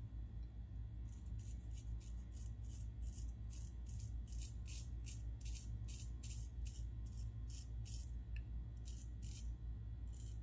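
Parker PTBABK adjustable shavette razor scraping through lathered stubble on the chin and jaw in short, quick strokes, about two to three a second, starting about a second in.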